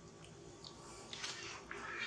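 Faint crunching and chewing from a long-tailed macaque eating a snack bar: soft irregular clicks and short rustly bursts.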